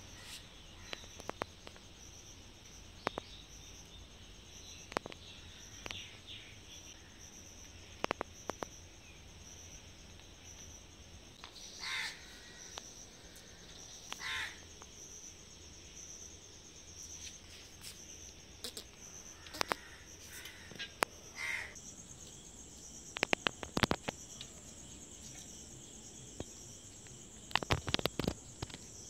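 Insects chirping in a steady pulsing rhythm, which turns into a continuous high trill about two-thirds of the way through. Two crow caws come a couple of seconds apart near the middle, and scattered sharp clicks and taps fall throughout, bunched near the end.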